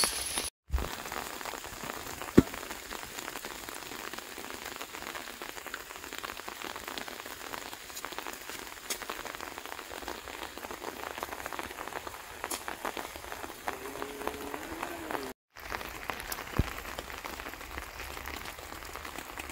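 Steady rain falling, an even hiss with many fine drop ticks. A single sharp knock sounds about two seconds in, and the sound drops out for a moment twice.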